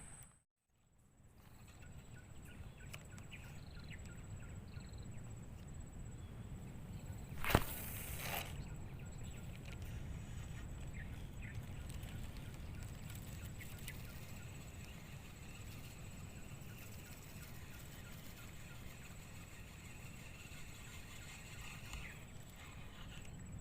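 Outdoor ambience: a steady low rumble like wind on the microphone, with a few faint chirps and one sharp click about seven and a half seconds in. It starts after a brief silent gap.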